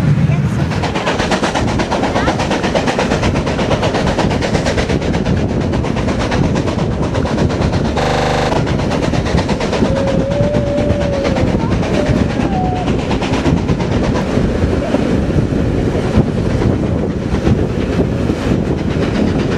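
Railway train running along the track, a steady rumbling clatter, with a brief louder burst about eight seconds in and a short wavering tone about ten seconds in.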